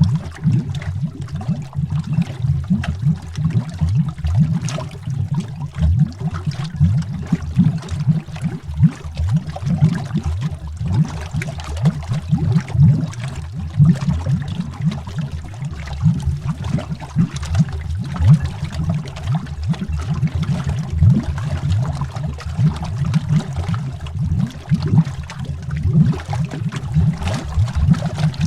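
Continuous underwater bubbling: a dense stream of deep, low bubble pops and gurgles, irregular but steady in level.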